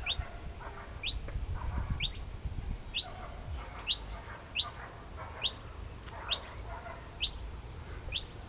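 Noisy miner chick calling from its nest: a short, high chirp that drops quickly in pitch, repeated about once a second, roughly ten times.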